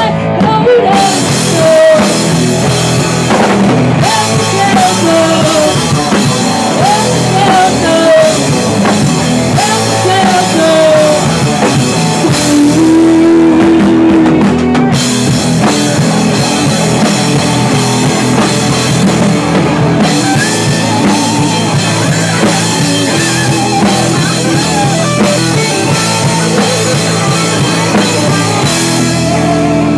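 Live rock band playing loud: drum kit, electric guitar and bass guitar together, without a break.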